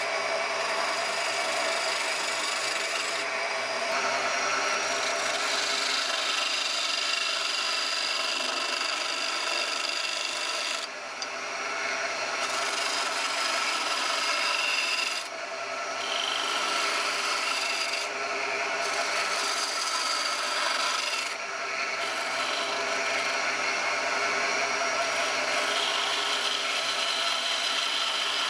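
Spinning wood being cut with a high-speed steel turning tool on a DeWalt radial arm saw's lathe attachment: a steady scraping over the saw motor's steady hum. The cutting noise drops out briefly four times, for under a second or so each.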